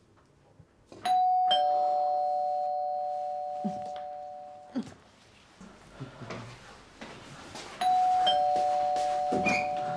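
Two-tone ding-dong doorbell chime rung twice, about seven seconds apart: each time a higher note is struck, then a lower one half a second later, both ringing on and fading over a few seconds.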